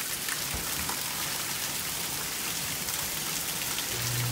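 Heavy rain pouring steadily, beating on grass and splashing into puddles.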